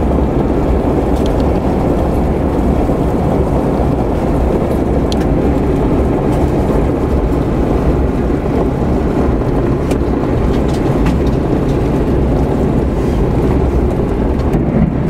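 Steady road and engine rumble heard from inside the cabin of a moving vehicle, with a few light ticks.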